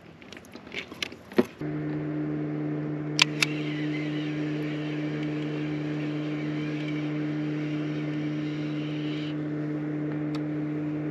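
A motor runs steadily with a low, even hum of unchanging pitch. It starts about a second and a half in, after a few light clicks and knocks.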